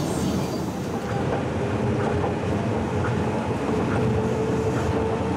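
Inside a Tokyo Monorail car running at speed: the steady rumble of the rubber-tyred train on its concrete beam. A steady whine comes in over it and grows louder in the second half.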